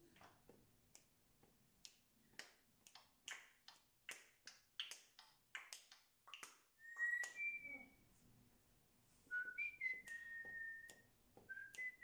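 Pet parrot making a quick run of sharp clicks, then a handful of clear whistles: short held notes, some gliding up, one held for about a second.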